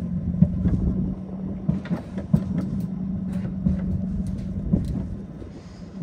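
Alpine coaster sled running on its tubular steel rails: a steady mechanical hum and rumble, broken by sharp knocks and clacks from the wheels and track joints. The hum fades about five seconds in.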